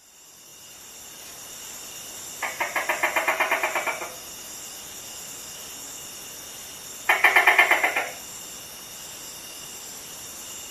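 Gecko calling: two short rapid series of clicking chirps, about ten a second, the first lasting about a second and a half and the second about one second, over a steady background hiss.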